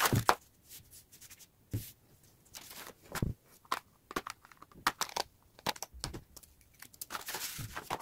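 Kraft wrapping paper and a paperback book being handled: paper rustling and crinkling in short irregular bursts, with a few light knocks as things are set down, loudest at the start and again near the end.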